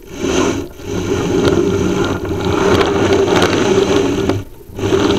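Chimney inspection camera scraping and rubbing against the inside of a flue liner as it is moved, a loud noisy scrape with small clicks that breaks off briefly about a second in and again near the end.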